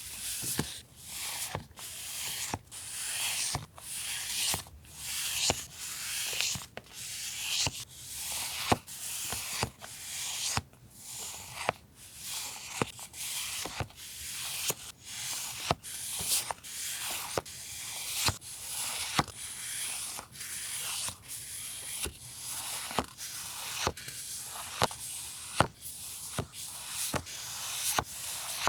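Paper being handled and pages turned one after another: a quick rustle, each beginning with a light tap or tick, repeating every second or less.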